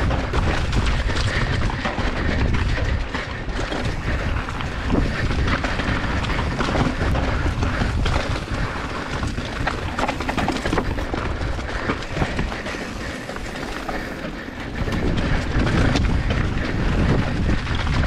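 Mountain bike riding fast down a rough dirt and rock trail: tyre noise over dirt and leaf litter, constant rattling and knocking from the bike over bumps, and a deep rumble of wind buffeting the microphone.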